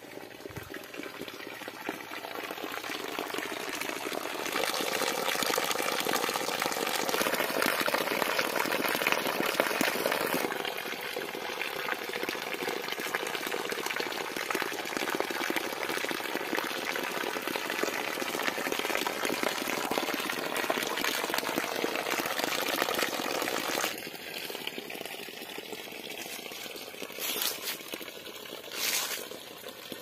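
Water pouring steadily from a pipe spout and splashing onto rocks and wet ground, louder through the middle and dropping off near the end. Two brief noises near the end.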